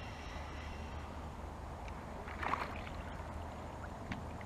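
Low sloshing of water around a plastic kayak as a small hooked largemouth bass is brought alongside, with a brief splash about halfway through as the fish comes to the surface.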